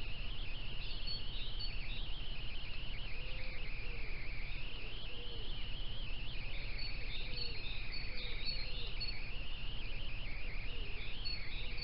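Distant birdsong blending into a continuous wavering chorus with brief high chirps, over a steady low hum and hiss from a trail camera's microphone. No sound of the fox eating stands out.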